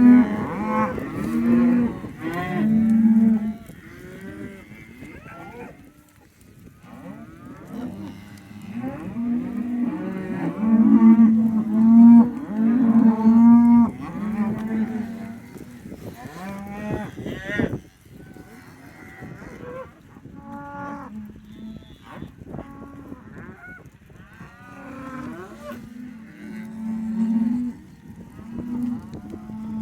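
Cattle mooing, many animals calling over one another in long, overlapping moos. The calls are loudest and densest around the middle, then thin out.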